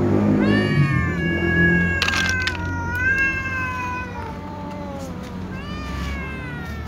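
Cats meowing for food as they are hand-fed: a long drawn-out meow starts about half a second in, wavers and slowly falls, followed by two shorter falling meows. A brief crackle comes about two seconds in.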